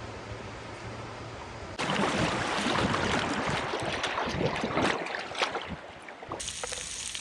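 Water splashing hard for about three seconds, beginning suddenly about two seconds in and dying away, over a steady rush of moving river water.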